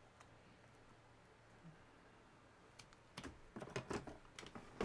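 A quick run of light clicks and taps, like typing, starting about three seconds in after a near-silent stretch: hard plastic and tools being handled while opening a laptop battery pack.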